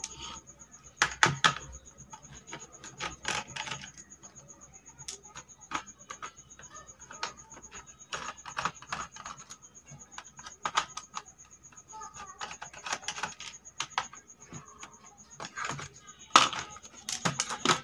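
Irregular clicks and plastic knocks of a screwdriver undoing small screws in the underside of a plastic remote-control toy car, and of the plastic shell being handled. The knocking comes thicker and louder near the end as the shell is opened.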